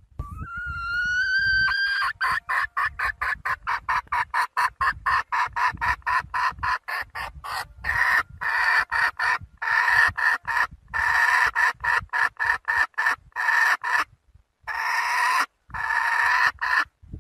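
Young female red junglefowl (a hen) calling to a rooster. It opens with one drawn-out note rising in pitch for about two seconds, then a fast run of clucks at about five a second, then longer notes with short breaks between them.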